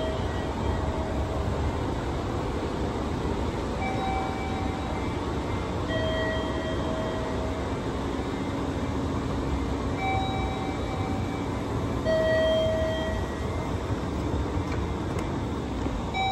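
Mitsubishi escalator running downward, a steady low mechanical rumble. Over it, a two-note electronic chime repeats roughly every six seconds: a higher tone, then a lower one about two seconds later.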